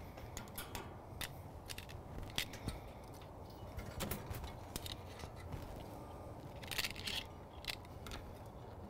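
Scattered light clicks and scrapes of metal tongs on a steel grill grate as thick filet mignon steaks are lifted off, with a couple of short louder scuffs.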